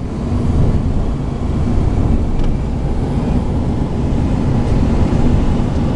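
Steady road and wind noise of a car travelling at highway speed, heard from inside the car, with most of its weight in the low range.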